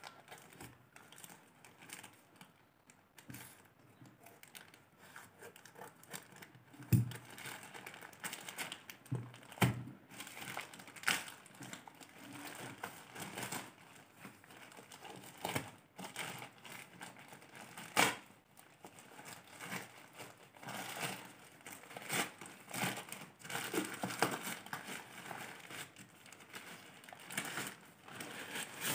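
Plastic courier mailer bag crinkling and rustling as it is handled and torn open by hand, with a few louder knocks.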